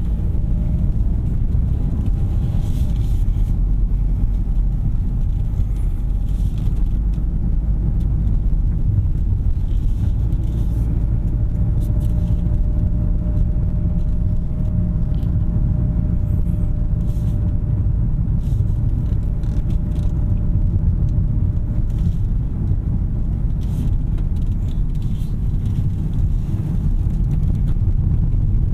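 Steady road and tyre rumble heard inside the cabin of a 2021 Kia K5 Hybrid sedan while driving, with a faint thin whine through the middle.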